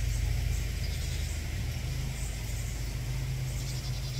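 An engine running steadily at an even speed, a low hum.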